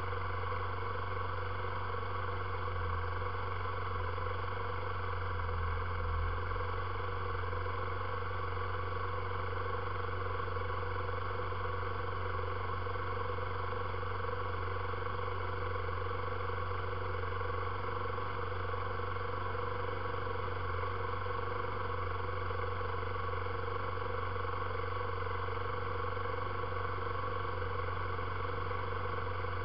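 ATV engine idling steadily, an even, unchanging drone.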